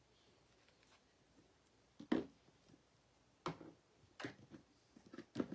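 Plastic squeeze bottles of acrylic paint being picked up and handled, giving four short knocks and clatters over a few seconds.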